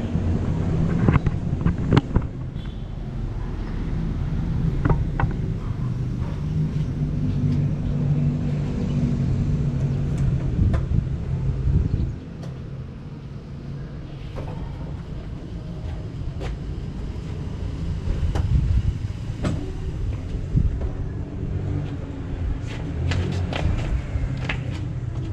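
Yamaha Sniper 150's single-cylinder four-stroke engine running through a UMA Tru Pressure aftermarket exhaust, with sharp ticks scattered through it. It runs louder for about twelve seconds, then drops abruptly to a lower, quieter idle.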